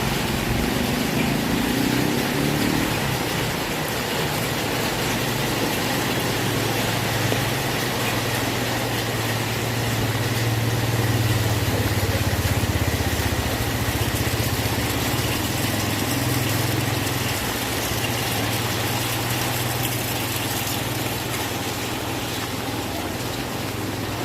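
Heavy rain falling steadily, with a steady low rumble underneath that swells slightly in the middle.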